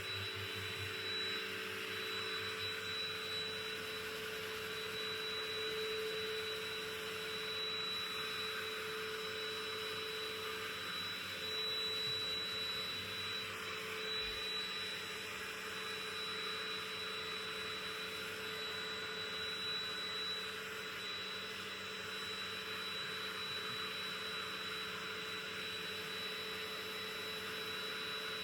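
Vacuum cleaner running steadily: a constant rush of air with a thin, high whine held over it.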